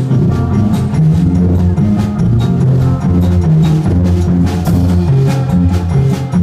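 Live rock band playing an instrumental passage: electric guitar playing a riff of low notes over a drum kit keeping a steady beat on bass drum and snare.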